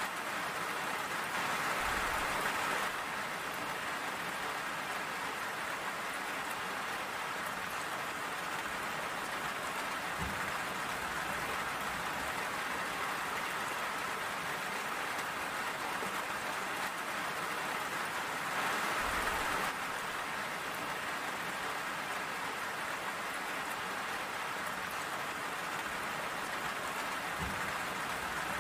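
Steady rain falling, with two brief swells where it gets a little louder and a couple of faint low thuds.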